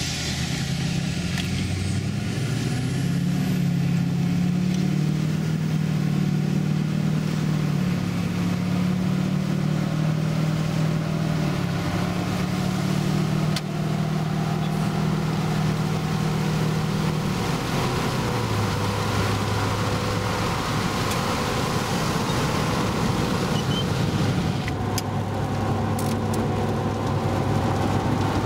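Straight-piped LBZ Duramax 6.6-litre V8 turbodiesel in a 2007 Chevrolet 2500HD pickup, heard from inside the cab while driving. The steady exhaust drone drops in pitch about two-thirds of the way through, as at a gear change.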